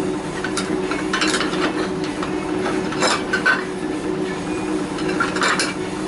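Laguna woodturning lathe motor running with a steady hum, with a few short metallic clinks and clatters of turning tools being handled.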